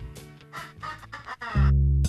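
Background music: a quieter passage, then a much louder, bass-heavy section kicks in about a second and a half in.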